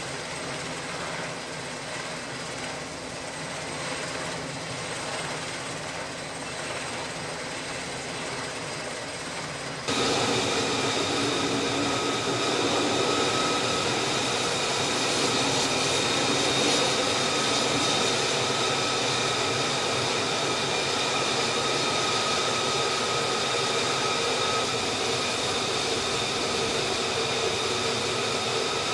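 Single jet engine of an F-35C running steadily at low power, a high whine over a broad rushing noise. About ten seconds in it turns suddenly louder and brighter, then holds steady.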